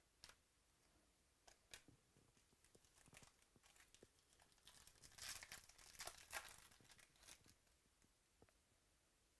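Faint crinkling and rustling of trading-card packs and cards being handled, with scattered soft clicks, busiest from about four to seven seconds in.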